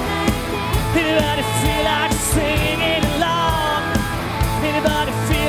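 Live worship band playing an upbeat rock song: electric guitars, bass and drum kit with a steady beat, and sung vocals over them.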